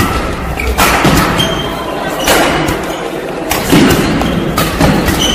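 Badminton rally: sharp cracks of rackets hitting the shuttlecock, about one a second, with short high squeaks of court shoes between the hits.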